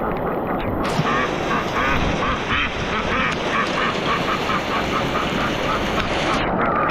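Pekin duck quacking in a fast, steady run of about three quacks a second, starting about a second in, over a steady hiss of hail and wind.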